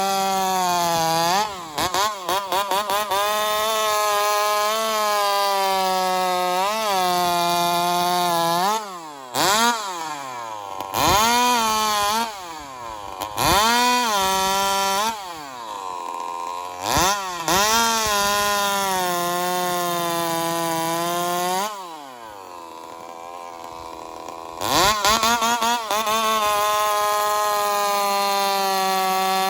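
Joncutter 5800 two-stroke chainsaw running on alcohol fuel at high revs. Several times the revs drop sharply and climb back, and there is a few-second spell of lower revs past the middle before it screams back up. The owners suspect the fuel line and fuel filter can't draw fuel fast enough.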